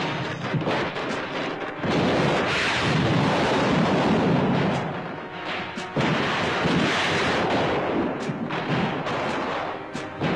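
Battle sound effects of dense rifle gunfire mixed with a music score. Loud throughout, growing heavier about two seconds in and again about six seconds in.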